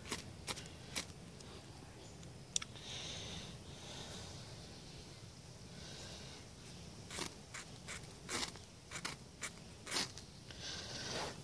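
Ferrocerium rod pendant struck with a zirconia ceramic scraper: a series of short sharp scrapes, a few in the first second, a fainter drawn-out scrape soon after, then a quicker run of about half a dozen strikes near the end, the last of which light the fatwood shavings.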